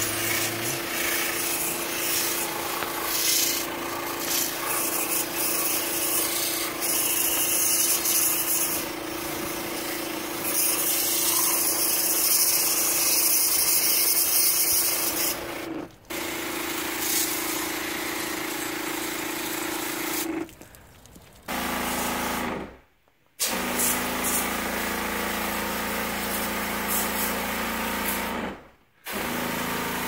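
A small electric pressure sprayer runs with a steady hum while its wand jets water through a heat pump's coil, with a hiss of spray. It cuts out briefly about 16 seconds in. After about 21 seconds it gives way to a lower-pitched run of the sprayer that stops and starts a few times.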